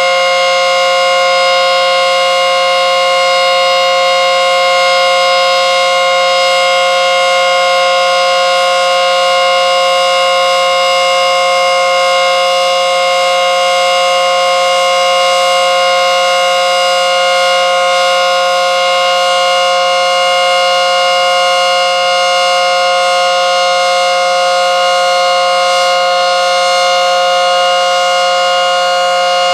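ACA Screamer S10 outdoor warning siren, wired in reverse so its rotor runs backwards, sounding a full-alert steady tone. It is loud and holds one unwavering pitch, with no rise or fall.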